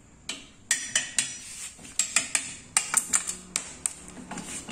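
Metal motorcycle exhaust pipes and parts clinking and knocking against each other as they are handled, a quick irregular run of sharp clinks, some ringing briefly.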